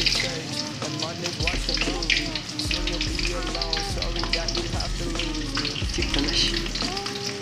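A metal spoon stirring a thick sauce simmering in an aluminium pot. The sauce is bubbling, and the spoon makes light scrapes and clinks against the pot.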